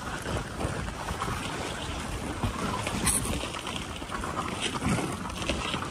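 Dog sled runners hissing and scraping over a packed-snow trail while the sled is pulled along at speed, with wind buffeting the microphone and irregular knocks as the sled rides over bumps.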